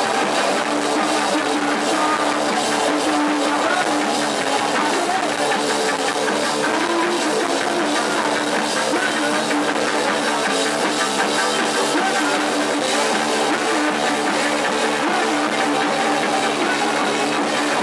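Live post-punk rock band playing: electric guitar over a drum kit, steady and loud.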